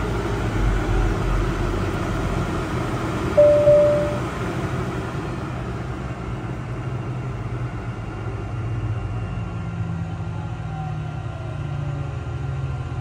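Cirrus Vision Jet's Williams FJ33 turbofan idling steadily, heard from inside the cockpit as a low rumble, left running to dry the engine after a fresh-water compressor rinse. About three and a half seconds in, a brief high beep sounds over it.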